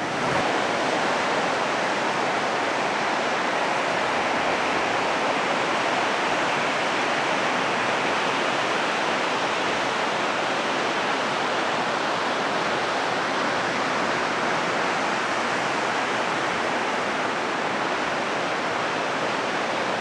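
Steady, even wash of breaking ocean surf, with no single wave crash standing out.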